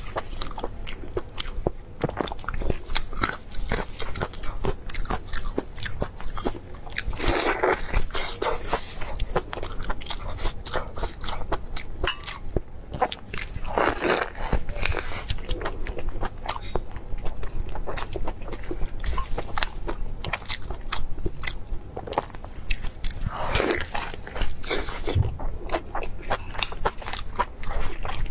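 Close-miked eating of spiced crab: biting, chewing and crunching through shell and meat, with many sharp cracks and clicks.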